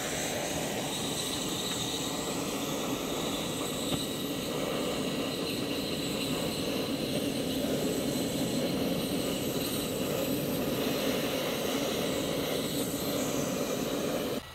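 Steady rushing hum of a wood gasifier being started: a propane torch firing into its burn tube to light the charcoal while a blower fan draws air through the gasifier.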